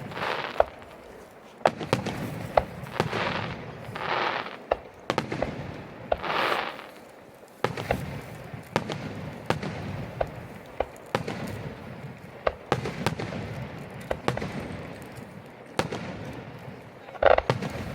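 Aerial fireworks bursting: a steady run of sharp bangs and crackles, with stretches of hiss in between.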